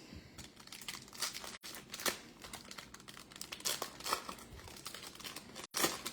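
Foil trading-card pack wrapper crinkling as it is torn open, with a sharper crackle near the end.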